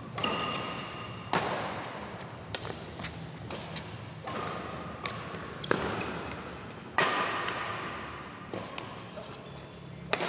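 Badminton rackets striking a shuttlecock in a doubles rally, with four sharp hits that echo through a large hall. The last hit is a jumping smash. Lighter taps fall between the hits.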